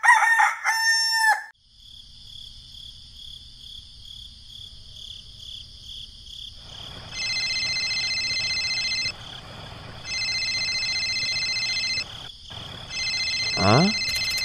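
A rooster crowing once, loudest at the start. Then a mobile phone ringtone sounds in three rings of about two seconds each, with a quick rising whistle near the end.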